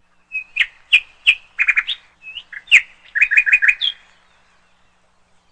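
A bird chirping: a string of short, bright chirps, some coming in quick runs of three or four, that stops about four seconds in.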